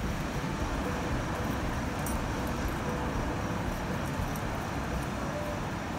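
Steady outdoor background noise: an uneven low rumble of wind on the microphone over an even rush, with no distinct events.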